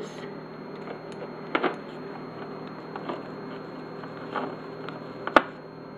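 Quiet kitchen handling: a few light taps and clicks as a measuring cup and spice containers are moved and set down on a stovetop, the sharpest near the end, over a steady low hum.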